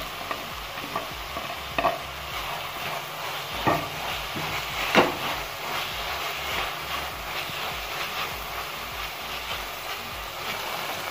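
Vegetables sizzling in a hot oiled metal pan while a spatula stir-fries them. There is a steady frying hiss, with a few sharper scrapes and knocks of the spatula against the pan, the loudest about five seconds in.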